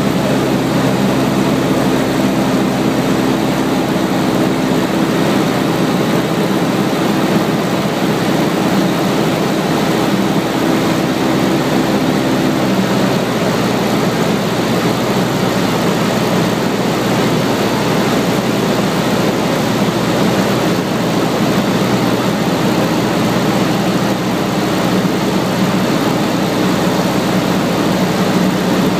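Cessna 152's four-cylinder Lycoming engine and propeller running steadily in flight, heard from inside the cabin together with the rush of air noise. Its tone shifts slightly about twelve seconds in.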